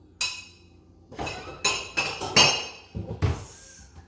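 Kitchen dishes and utensils clinking: about seven sharp knocks, each with a short ringing tail, spread over a few seconds.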